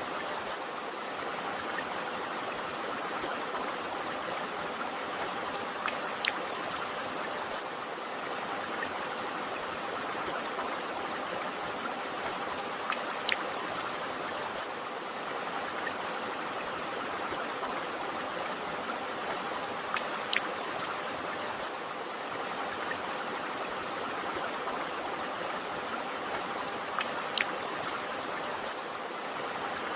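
River or stream water flowing steadily, an even rushing sound. A sharp drip or splash is heard about every seven seconds.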